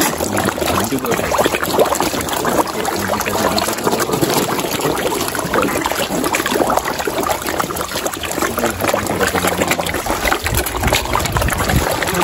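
A packed crowd of feeding carp churning at the water's surface. Continuous wet splashing and gulping as the fish jostle over one another with their mouths gaping open.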